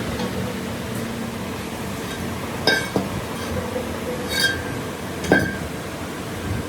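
Three sharp metallic clinks with a brief ring, metal parts or tools striking each other, the loudest near the end, over a steady background hum.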